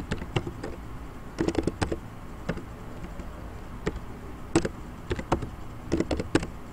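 Typing on a computer keyboard: irregular keystroke clicks, some in quick runs of several keys, with short pauses between.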